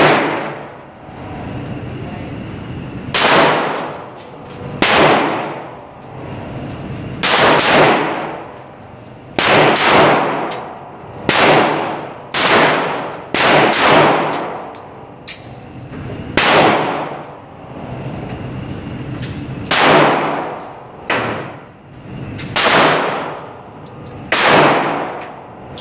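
Handgun shots fired one at a time, about fifteen, irregularly spaced from under a second to a few seconds apart. Each is a sharp crack followed by a long echo in the indoor range.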